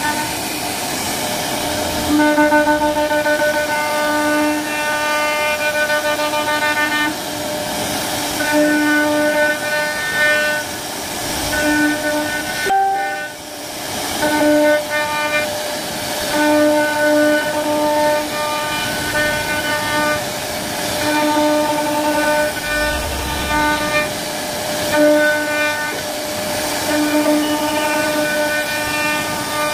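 CNC router spindle carving a wooden panel. A high, steady whine over cutting hiss swells and drops back every second or two as the bit works through the pattern, with a short break about halfway.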